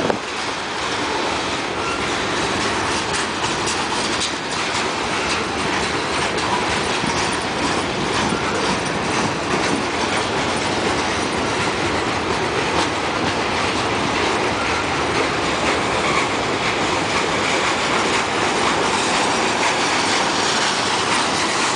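Freight train cars rolling past, a steady rattle and rumble of steel wheels on the rails, with the wheels clicking over rail joints.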